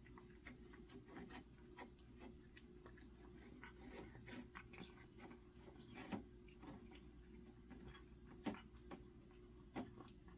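A cat eating after tooth-extraction surgery for stomatitis: faint, irregular chewing and clicking, with a few louder clicks in the second half.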